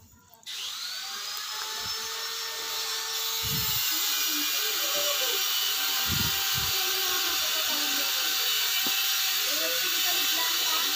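A steady whirring, rushing noise starts abruptly about half a second in and runs on evenly, with a few dull knocks underneath.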